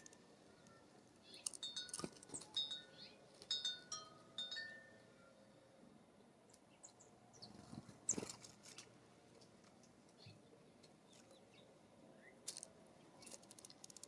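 Faint, chime-like tinkling: short clusters of high metallic notes mixed with light clicks, a few seconds apart, with a soft knock about halfway through.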